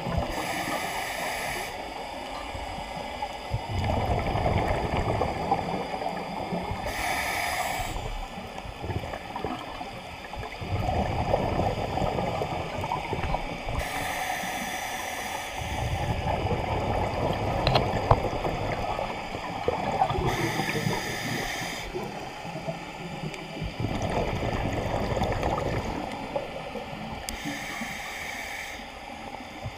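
Scuba diver breathing through a regulator underwater: a short hiss on each inhale, five in all about every six to seven seconds, alternating with longer gurgling bursts of exhaled bubbles.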